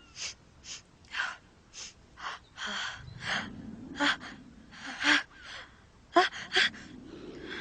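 A woman's repeated short, sharp gasping in-breaths, the build-up of a sneeze brought on by flowers. Two loud, sharp bursts come about six seconds in.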